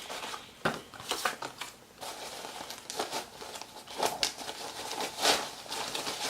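Packaging crinkling as an item is unwrapped by hand, in irregular short rustles and crackles.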